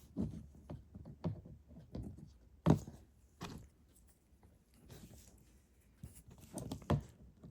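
Plastic Lego pieces being handled and pressed together on a table: a scatter of light clicks and taps, the sharpest about two and a half seconds in.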